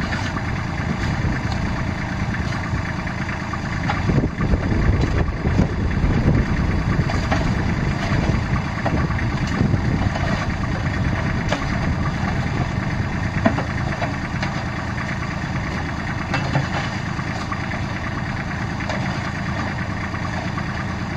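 Compact tractor engine running steadily, a little louder for a few seconds about four seconds in.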